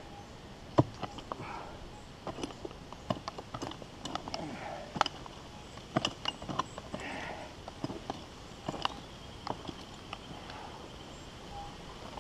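Hand pick digging into hard ground after a deep metal-detector target: irregular sharp knocks as the blade strikes, with soft scraping of loosened dirt between blows.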